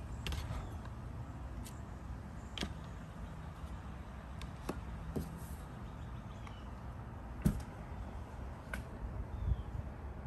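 Low, steady rumbling background noise with a scattered series of light clicks and knocks, about ten in all, the sharpest about seven and a half seconds in.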